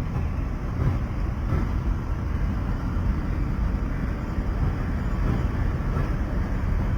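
Train running, a steady low rumble.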